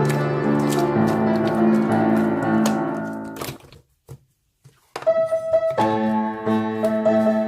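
Solo piano playing. The notes die away about halfway through, there is a pause of about a second, and then playing resumes with a repeated higher note over lower chords.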